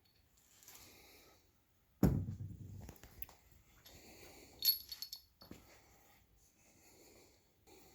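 Metal engine parts handled during small-block Chevy bottom-end assembly: a sharp clunk about two seconds in, then lighter metallic clinks and rustling.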